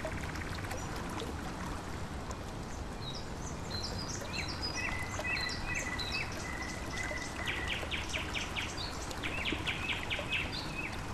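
Small birds chirping over a steady rush of running water. The chirps begin about three seconds in, with quick trilled phrases near the end.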